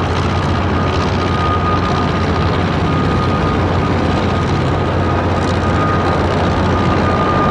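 Boeing 737-8 MAX's CFM LEAP-1B turbofan engines running at take-off power: a steady jet rush with a high whine held above it, the whine dropping slightly in pitch near the end.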